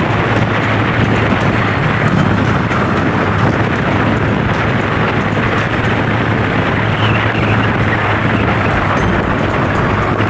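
Steady wind rush on the camera microphone over the even hum of a Honda PCX 160 single-cylinder scooter engine cruising along the road.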